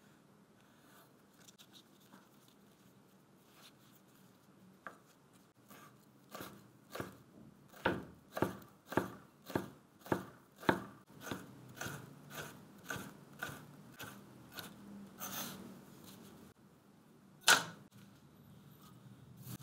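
Chef's knife slicing a stack of spring roll wrappers into thin strips on a wooden cutting board: a steady run of short chopping strokes, about two a second, starting a few seconds in. Near the end comes a single sharp knock, the loudest sound.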